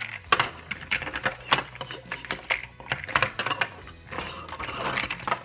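Plastic Monster Morphers toy monster trucks clicking and clacking as they are flipped over from motorcycle mode into truck mode and set down on a table: a run of irregular sharp clicks and knocks.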